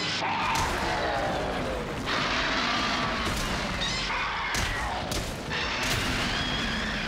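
Kaiju fight sound effects: monster roars and screeches that fall and rise in pitch, mixed with several heavy thuds and crashes of blows.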